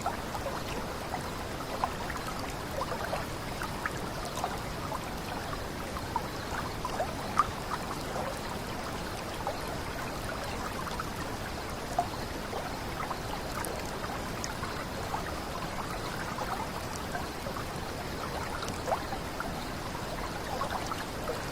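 Small cascade of flowing water, splashing and burbling steadily, with frequent little plops and drips.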